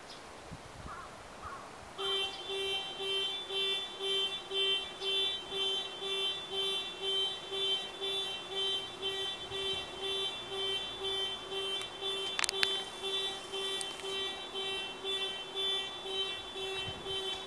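A steady alarm-like pulsing tone, about two and a half beeps a second, starting about two seconds in.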